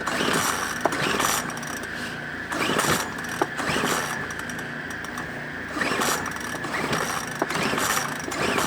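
Recoil starter of a Lifan ESI860i-CA 40cc inverter generator being pulled about four times, the engine cranking briefly each time but not catching. It fails to fire because the low-oil warning is holding it off.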